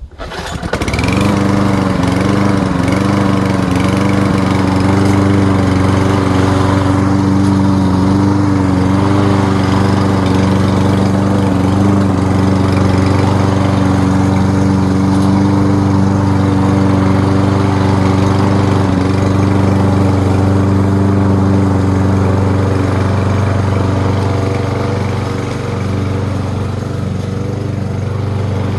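Lawn-Boy 20-inch lawn mower engine catching on a cold start about a second in, then running steadily, its pitch wavering for a few seconds before it settles.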